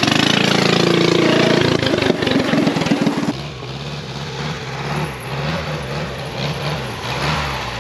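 Small garden tractor engine running, loud for about three seconds, then a lower, quieter engine note that rises and falls.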